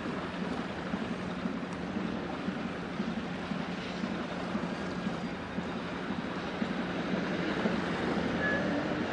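A passing container ship's engine running with a steady low hum under a rushing noise.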